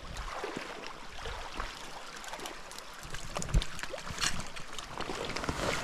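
Small rocky brook running and trickling over stones, with scattered light clicks and knocks over it; the sharpest knock comes about three and a half seconds in.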